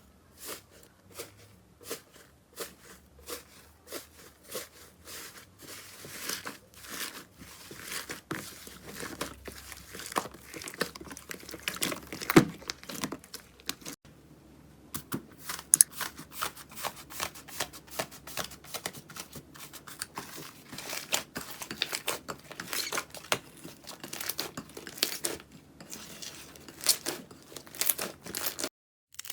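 Slime being squeezed and poked by hand, giving a dense run of crackling, crinkling pops and clicks, with a short pause about halfway through.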